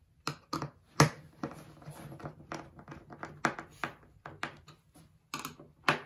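Irregular clicks and knocks of a screwdriver driving steel machine screws into threaded T-nuts as the add-a-panel is held against a speaker cabinet's back, with the loudest knock about a second in.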